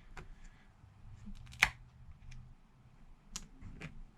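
A few sharp little clicks and taps, the loudest about one and a half seconds in, from a thin metal pry tool (iFixit Jimmy) working underneath the edge of an iPad's glass screen.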